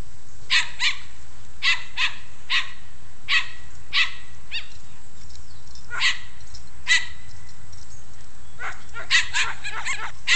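Dog barking in short, sharp barks, one or two at a time, with a quicker run of barks near the end.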